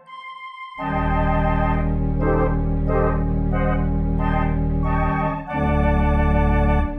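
Organ music: after a few soft high notes, a loud held chord with deep bass notes comes in about a second in, with the upper notes shifting every half second or so. It dips briefly, swells into a second held chord, and falls away near the end.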